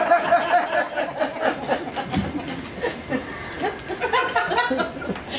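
Audience chuckling and laughing, with scattered murmured talk.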